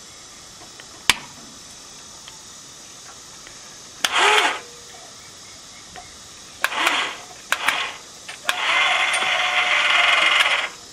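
Electric winch lowering a string of PVC well pipe, run from a pendant remote: a sharp click about a second in, then the winch motor jogged in three short bursts and finally run steadily for about two seconds.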